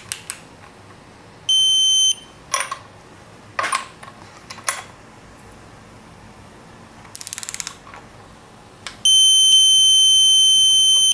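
Digital torque wrench beeping with a steady high tone, briefly about 1.5 s in and then held from about 9 s to the end: the wrench's signal that the set torque, here 55 Nm on the N20 timing bolts, has been reached. In between come a few metallic tool knocks and a quick run of ratchet clicks.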